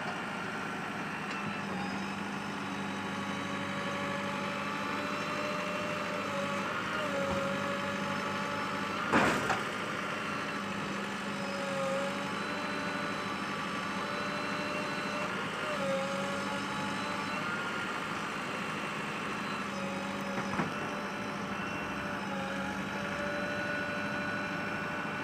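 JCB 3DX backhoe loader's diesel engine running steadily, its pitch dipping briefly every few seconds as it takes load. A sharp knock stands out about nine seconds in, with a smaller one later.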